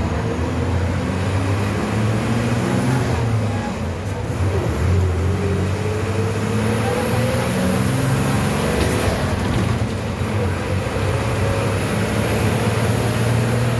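MWM 6.10 six-cylinder turbo engine of a city bus, converted to run on natural gas, running under load. Its pitch rises twice as the bus gathers speed through the gears.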